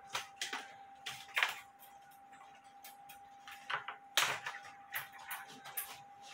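Steel clock mainspring and a tape measure clicking and rattling in irregular short bursts as the spring is unwound and measured, the loudest rattle about four seconds in.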